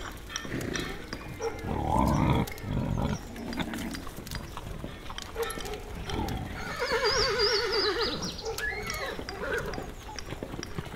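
Mixed sound-effect ambience in which a horse whinnies with a shaking, quavering pitch for about a second and a half, some seven seconds in. Under it runs the crackle and pop of an open fire, and a deeper animal call comes about two seconds in.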